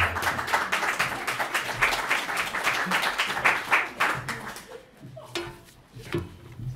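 Audience applause, many hands clapping, fading away after about four and a half seconds, then a couple of soft knocks.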